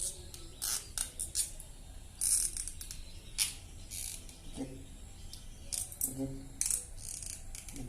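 Young lovebird, not yet five months old, chattering in short, harsh, scratchy bursts at irregular intervals. Its voice is still hoarse and raspy at this age.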